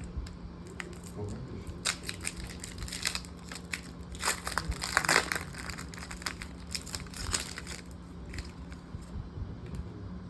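Foil wrapper of a Pokémon Journey Together booster pack crinkling and tearing as it is opened, in irregular crackles that are busiest about four to five seconds in.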